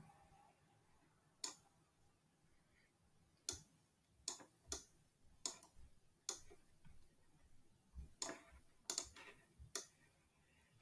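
Computer mouse buttons clicking: about a dozen short, sharp clicks at uneven intervals over near silence, as the mouse is pressed and released to draw.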